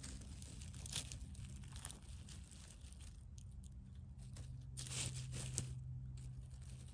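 Dry spruce needles and forest-floor litter crackling and rustling under a hand as a mushroom is grasped and pulled from the ground. There are scattered crackles, with the loudest cluster about five seconds in.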